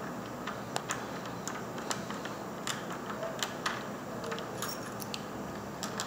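Irregular light clicks and taps, roughly two or three a second, over a steady low hiss.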